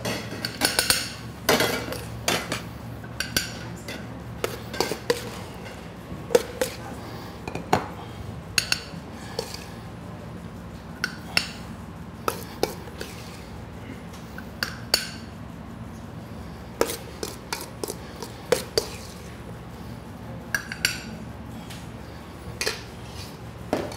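Metal spoon clinking and scraping against a stainless steel mixing bowl and tapping onto glass plates as salad is spooned out, in irregular sharp clinks a second or so apart.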